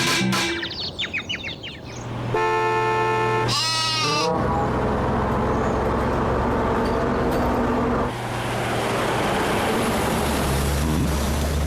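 A held horn-like tone, then a brief warbling tone, then a steady engine-like rumble that runs on through the rest.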